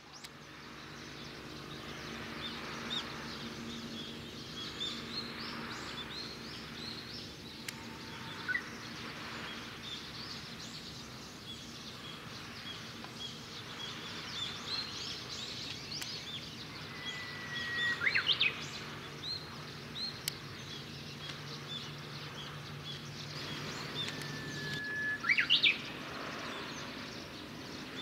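Small birds chirping and singing all through, over a low steady hum. Twice, once past the middle and once near the end, a louder song stands out: a long held whistle that breaks into a quick rising-and-falling flourish.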